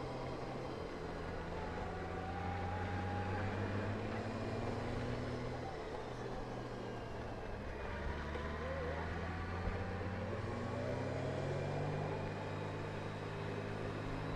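Large 1800 cc touring motorcycle engine running on the rider's own bike through a series of curves, its note dipping about six seconds in and climbing again over the next few seconds as the throttle is rolled off and back on, under a steady rush of wind.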